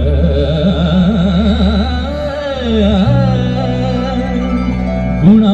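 Carnatic-style sung verse: a voice draws out a melody with quick wavering ornaments over a steady drone. About three seconds in it settles into a long held note.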